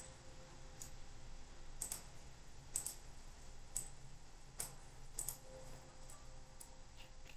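Computer mouse button clicks, about ten single or paired clicks at irregular intervals of roughly a second, over faint room hum.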